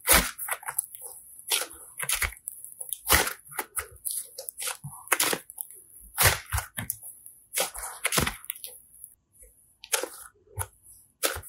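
Soft slime being squeezed, kneaded and stretched by hand, giving irregular sharp clicks and sticky pops, a few a second, a little sparser near the end.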